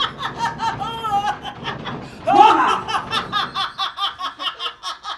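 A woman laughing heartily in rapid, repeated ha-ha bursts, with a fresh loud outburst about two seconds in.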